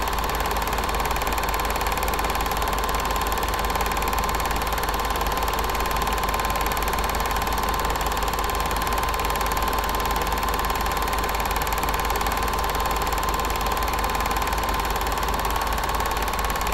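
Film projector running, a steady mechanical whir with a faint fine clatter and a constant whine, unchanging throughout.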